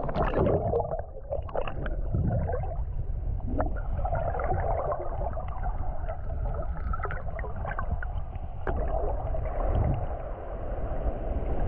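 Muffled underwater sound of shallow sea water picked up by a camera held below the surface: a steady low rumbling wash with gurgling and scattered sharp clicks and knocks.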